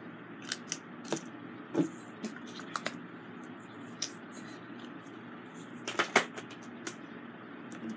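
Small, sharp plastic clicks and taps at irregular intervals, with a louder cluster about six seconds in: diamond-painting work, resin drills being handled and pressed onto the canvas with a drill pen. A faint steady hum lies underneath.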